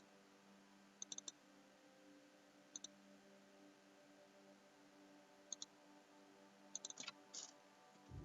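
Computer mouse clicks in small quick groups of two or three, over faint steady room hum.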